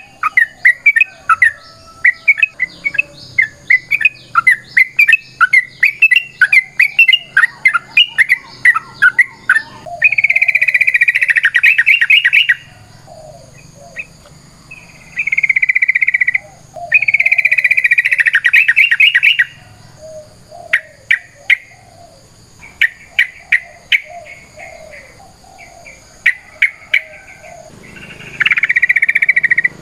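Yellow-vented bulbul (trucukan) singing loudly. It opens with a quick run of chirped notes, then gives several long, fast rattling trills of about two to three seconds each, broken up by short chirps. This is the long, rapid 'ropel panjang' fighting song.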